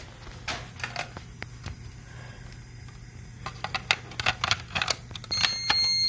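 Plastic clicks and knocks from an SD505-PHOTO smoke detector head being handled and plugged onto its mounting base, coming faster about halfway through. Near the end a short, steady high electronic beep sounds for under a second.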